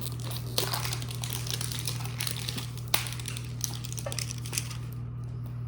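Crinkling and rustling of a foil Pokémon booster pack wrapper as it is opened, with small sharp clicks of the cards being handled, over a steady low hum.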